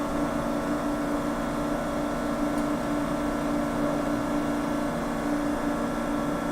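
Steady mechanical hum with a strong low held tone and a few fainter higher tones, unchanging throughout.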